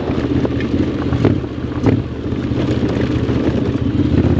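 Honda X-ADV 750's parallel-twin engine running through a full Akrapovic exhaust at a steady engine speed.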